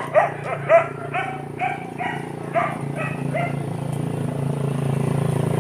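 A dog barking about eight times in quick, even succession, stopping a little past halfway. A steady low drone runs underneath and grows slightly louder toward the end.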